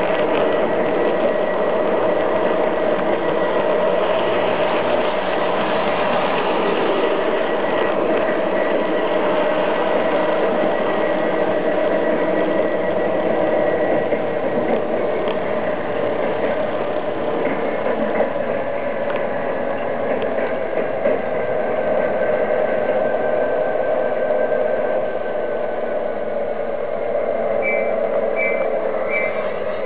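Large-scale garden railway model train running, heard from on board: a steady whir of its motor and gears with the wheels rolling along the track. Near the end a run of short high chirps repeats about twice a second.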